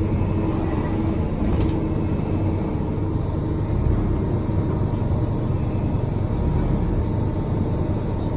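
Vehicle engine and road rumble heard from inside the cabin, a steady low drone with a faint steady hum.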